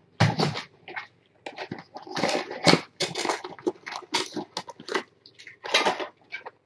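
Two kittens eating wet cat food off a plate: irregular, closely spaced chewing and licking smacks with short pauses.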